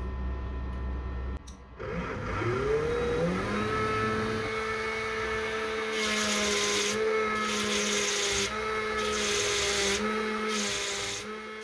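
Small DC motor of a homemade mini drill/grinder after a low hum: it spins up with a rising whine, then runs at a steady pitch. Several bursts of grinding hiss follow as the tool bears on the work, the motor pitch dipping a little under each load.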